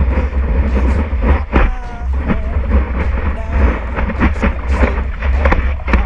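Wind rumbling on a surfboard-mounted action camera's microphone, with water rushing and splashing as the board rides a wave.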